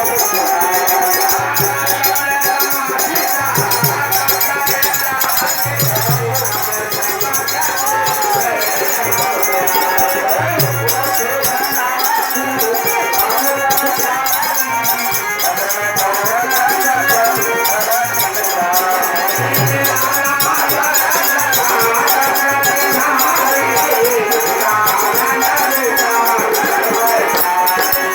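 Devotional song music, here an instrumental passage: a melody line bends up and down over a fast, steady shaker-like rattle, with occasional low beats.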